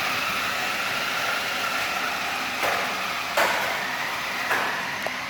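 Electric motors of toy-grade RC cars whining as they drive off down a drag strip, with the pitch climbing and then slowly sagging. Three sharp knocks come a little over halfway through, the middle one the loudest.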